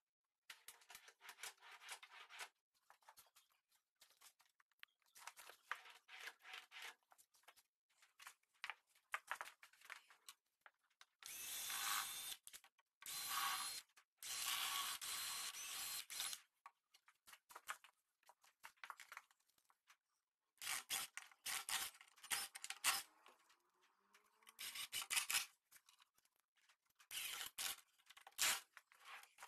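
Cordless drill driving screws into pine in repeated bursts of one to three seconds, the longest run about halfway through, as metal drawer slides are screwed to a drawer and cabinet. Between the bursts there are rubbing and clicking sounds of the drawer and slides being handled.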